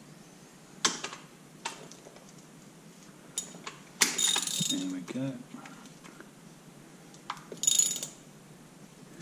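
Metal hand tools clinking and jangling: a few sharp single clicks, then two longer rattling bursts of metal on metal, the first about four seconds in and the second near the end.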